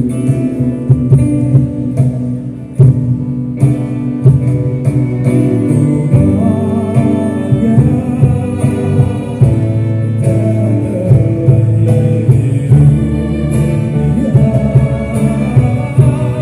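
Live band music played loud over a hall PA system: strummed guitars over a steady drum beat, accompanying a dance.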